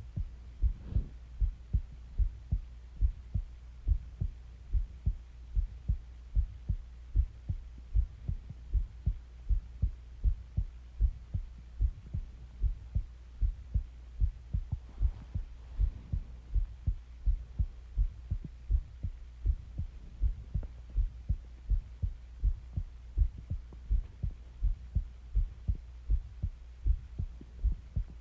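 A person's heartbeat: a steady, regular rhythm of low, dull thumps.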